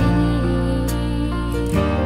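Instrumental background music: held chords that change every second or so, with a few light percussive hits.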